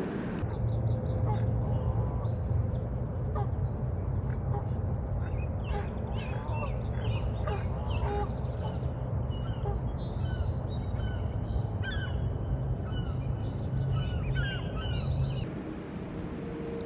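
Wild birds calling: many short calls, some gliding up or down in pitch, over a steady low rumble of wind or water. The calls and rumble start abruptly about half a second in and cut off about a second and a half before the end, leaving a quieter steady hum.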